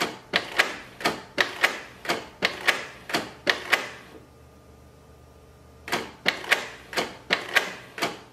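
Canon inkjet printer's mechanism clicking and clacking in a steady rhythm, about three sharp clicks a second, stopping for about two seconds in the middle before starting again.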